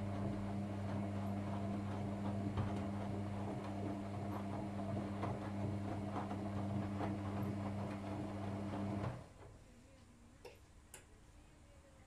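Whirlpool FL 5065 front-loading washing machine in its wash cycle: the drum motor hums steadily while wet laundry and soapy water slosh in the turning drum with scattered soft clicks. About nine seconds in the hum cuts off suddenly, leaving only a few faint clicks.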